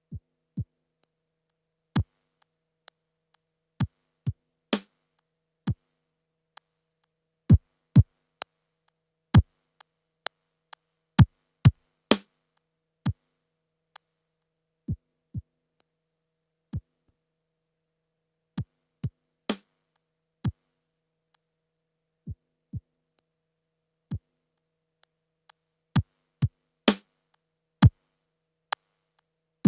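Sparse, sequenced electronic drum hits from a Yamaha PTX8 drum module run through an Akai EX70C compressor. Deep kick-like hits drop quickly in pitch, mixed with sharper clicky hits, in an uneven pattern with silent gaps between them.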